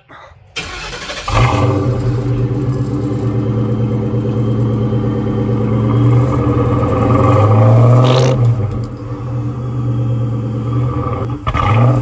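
Supercharged Ford Mustang engine with a ProCharger being started, catching about a second in and then running steadily. It is revved around seven to eight seconds in and again near the end, each rev with a rising whine that kind of sounds like a turbo whistle.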